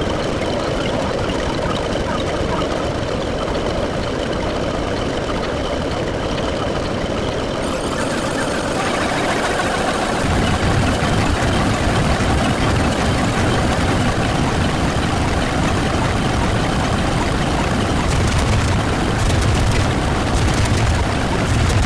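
A dense, continuous wall of overlapping sound effects with an engine-like low rumble. More layers join about eight seconds in, and the low rumble thickens about ten seconds in.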